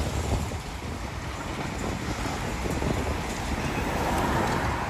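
Demolition excavator working on a concrete building: a steady, rumbling machine noise.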